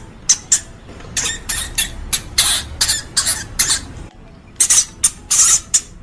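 A hamster giving a rapid series of short, high-pitched squeaks, about fifteen in quick clusters with a brief pause a little past halfway.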